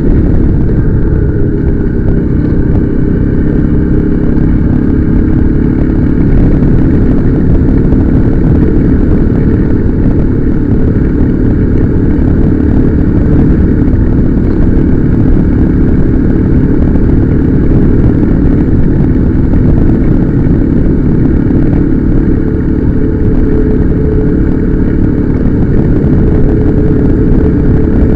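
Motorcycle on the move, its engine running steadily under heavy wind rush on the microphone.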